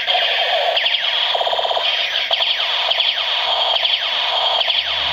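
Battery-powered toy machine gun's electronic firing sound effect: a steady, loud stream of rapidly repeating falling electronic tones.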